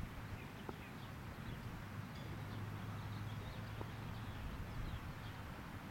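Outdoor ambience: a steady low hum under an even hiss of background noise, with faint bird chirps and two soft distant knocks, one about a second in and one near four seconds.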